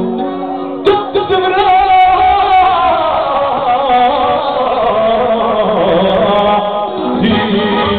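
Male singer performing a Balkan folk song through a microphone, accompanied by an accordion. The pitched melody wavers continuously, over held accordion chords.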